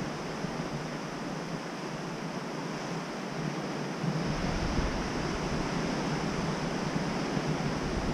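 Ocean surf washing onto a rocky beach, a steady rush, with wind on the microphone adding a low rumble that picks up about halfway through.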